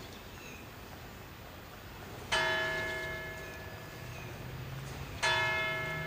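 A church bell struck twice, about three seconds apart, each stroke ringing on and slowly fading.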